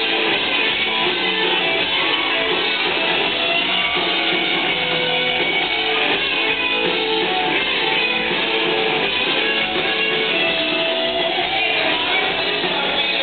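Rock band playing live at full volume, with electric guitars and drums, recorded from within the crowd.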